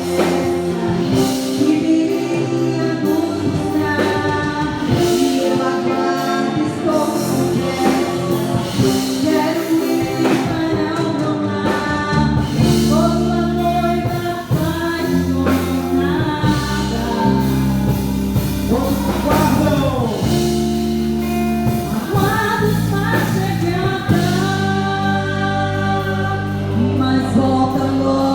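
Portuguese-language gospel worship song: a praise team singing together over instrumental backing with a keyboard or organ.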